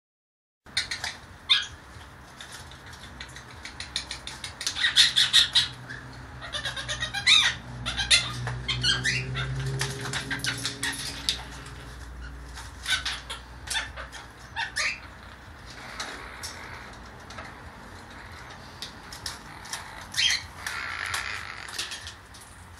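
Young blue Quaker parrot (monk parakeet) making a string of short, sharp squawks and chirps in quick clusters, busiest in the first half and sparser towards the end.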